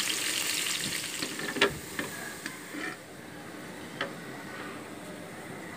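Sliced onions sizzling and crackling as they fry in hot oil for beresta. The sizzle dies down after about a second and a half. A few light knocks on the pan follow, at about 1.6, 2, 2.5 and 4 seconds.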